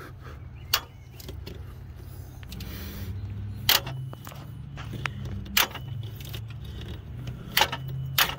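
Hand ratchet with a T50 Torx socket being worked back and forth to back out the tensioner pulley bolt, giving sharp metallic clicks about every two seconds, over a steady low hum. The bolt is still a little dry as it turns.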